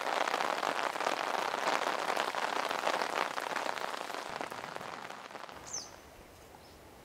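Heavy rain falling steadily. It fades out over the last couple of seconds into a much quieter background, with one short high chirp near the end.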